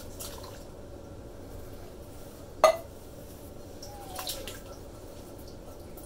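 Canned diced tomatoes sliding and plopping wetly out of their tins into a metal pot. A single sharp clack about two and a half seconds in is the loudest sound, and a short squeak follows near four seconds.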